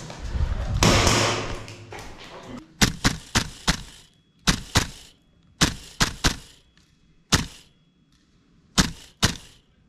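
Tokyo Marui MWS gas blowback airsoft rifle firing semi-automatic shots, about fourteen sharp cracks in quick strings of two to five. Before the shots, about a second in, there is a brief loud rush of noise.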